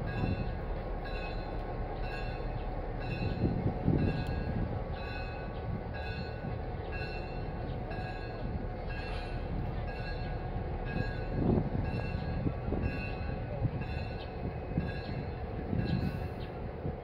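Electric locomotive moving slowly around a roundhouse: a steady low rumble, a few heavy thumps, and a high warning tone repeating about every two-thirds of a second.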